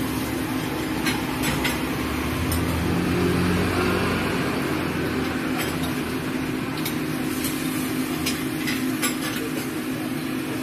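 Porcelain bowls and metal ladles clinking now and then as food is dished up, over a steady low hum.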